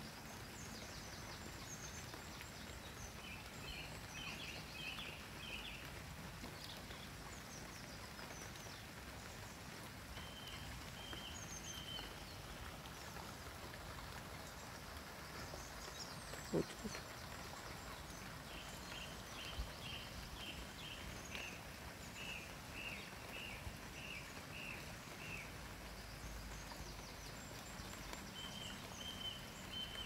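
Nightingale singing: separate phrases of quickly repeated short notes and a held whistled note, with pauses between, over a steady background hiss. A single sharp knock about halfway through.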